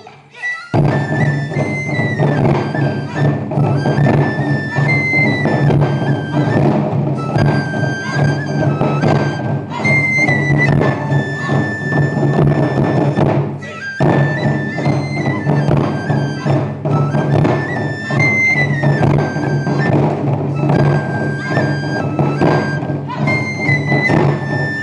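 Ensemble of Japanese taiko drums played in a fast, driving rhythm, with a high flute melody over the drumming. The playing starts just under a second in and breaks off briefly about halfway through before starting again.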